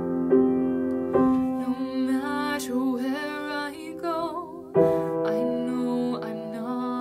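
Slow piano chords, with a woman singing a held, wavering phrase in the middle and a new chord struck near the end.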